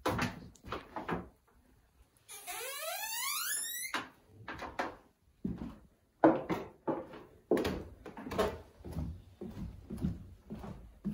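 Footsteps knocking on bare wooden floorboards and stairs, at about one or two a second. About two seconds in, a long creak rises steadily in pitch for about a second and a half.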